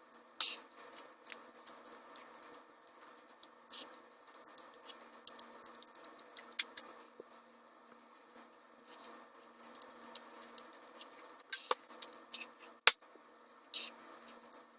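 Close-miked eating of spicy instant noodles: wet chewing with irregular clicks and smacks of the mouth.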